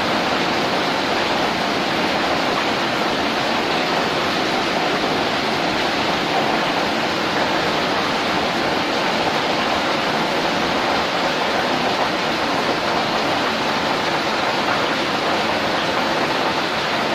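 Steady rushing hiss of water boiling hard in a large dandang rice-steaming pot over a wood fire, steam pouring out.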